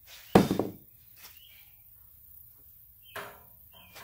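Black sheet-metal radiator support bracket clanking loudly once, about a third of a second in, with a short ring; a few light taps follow and a second, weaker knock near the end.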